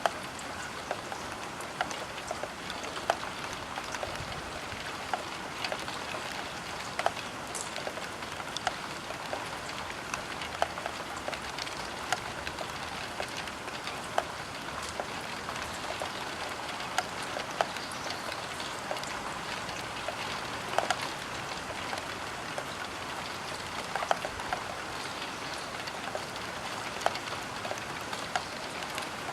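Rain falling on a roof window: a steady patter with many separate drops striking the glass as sharp, irregular ticks.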